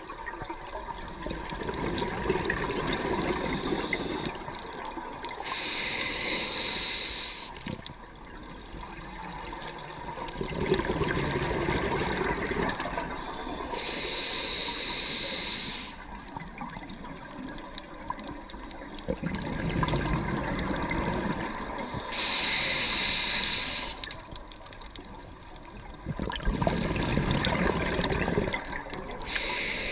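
A scuba diver breathing through a regulator underwater, about four slow breaths: each a short, high hiss of inhaled air through the regulator, then a longer rumble of exhaled bubbles.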